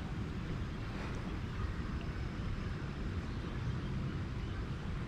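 Wind buffeting the microphone in a steady, fluttering low rumble, over a soft hiss of shallow river water flowing.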